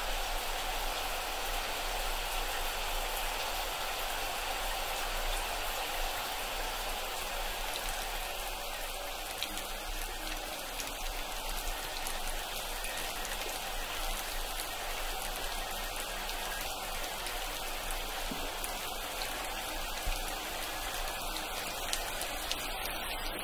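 Tap water running steadily from a bathroom faucet into a sink basin.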